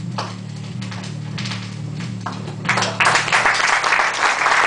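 A low, steady hum, then audience applause breaks out about three seconds in and becomes loud.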